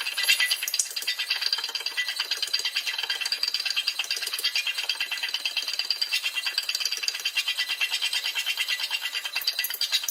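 A fast, even rattle made of many small clicks a second, with no deep thumps.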